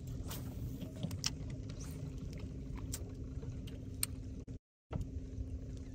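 Boat motor running steadily: a low rumble with a constant hum, with a few faint clicks on top. The sound cuts out briefly just past halfway.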